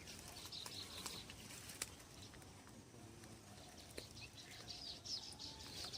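Faint outdoor ambience: scattered small bird chirps and a faint drawn-out distant animal call, with light clicks and rustles.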